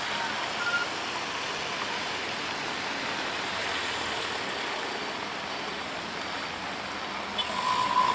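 Heavy rain pouring steadily, a continuous even hiss. Near the end it swells louder for a moment, with a steady whine in it.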